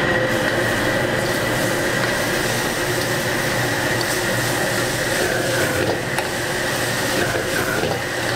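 Steady rush of a high-flame gas wok burner under a wok of onions, bean sprouts and chili paste sizzling as they are stir-fried with a metal ladle, with a few light ladle clicks against the wok.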